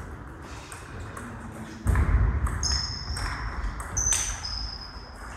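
Table tennis rally: the ball clicks off the bats and the table. Sports shoes squeak on the gym floor twice, about three and four seconds in, as a player lunges. A dull low thud comes about two seconds in.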